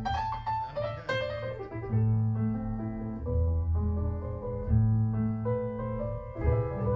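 Solo piano recording played back through Focal Diva Utopia loudspeakers: low bass notes held under chords and a melody.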